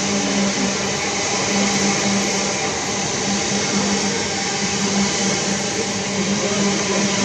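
Greater Anglia Class 379 Electrostar electric multiple unit passing a station platform: a steady rush of wheels on rail and moving air, with a steady electric hum under it.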